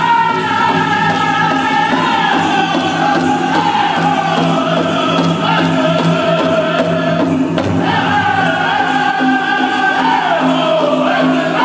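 Powwow drum group singing a straight dance song, several voices in unison on phrases that start high and step down. A new phrase starts high again about eight seconds in.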